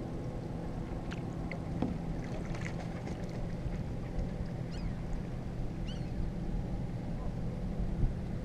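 Kayak being paddled on calm water, the paddle dipping and dripping, over a steady low hum. A few short high chirps come through about one to six seconds in.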